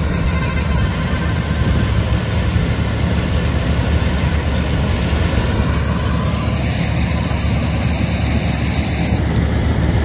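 Preet 987 combine harvester running steadily as it cuts soybeans, heard under a loud, even rushing noise with a heavy low rumble.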